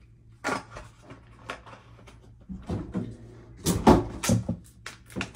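Refrigerator door opened and bottles moved about inside, a series of knocks and clunks, the loudest about four seconds in, over a low steady hum.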